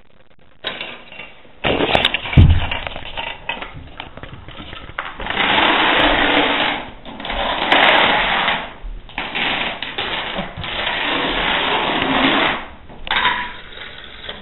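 A long chain of dominoes toppling on a hardwood floor: a fast, continuous clatter that comes in waves, thinning out and picking up again several times, with a heavy thud about two seconds in.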